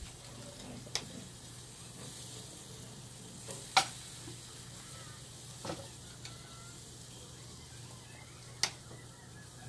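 Oysters in their shells bubbling and sizzling on a grill, still closed and not yet opened, with a steady hiss. Four sharp clicks, the loudest about four seconds in.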